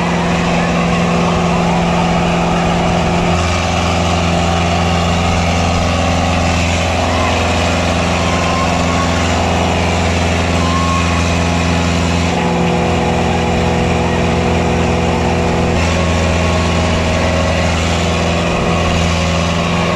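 HMT 6522 tractor's diesel engine running hard under load as it drags a loaded trolley through loose dirt; the steady engine note grows and eases a few times as the load changes.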